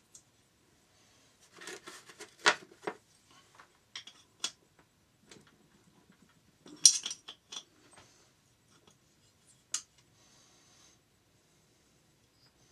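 Metal tools and engine parts clinking and knocking as the cylinder head fastenings are worked on: irregular sharp clinks, the loudest about two and a half and seven seconds in.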